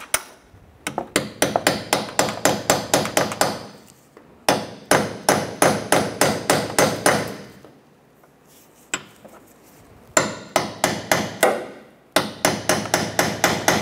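Hammer tapping quickly on a steel chisel, metal on metal with a ringing tone, in four runs of rapid strikes separated by short pauses. The chisel tip is being driven around the rim of a subframe crossmember bushing to work its seal out of the aluminum subframe.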